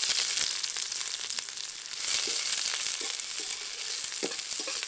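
Sliced onions sizzling in hot mustard oil in a metal kadai, stirred with a spatula that scrapes the pan now and then. The sizzle swells about two seconds in.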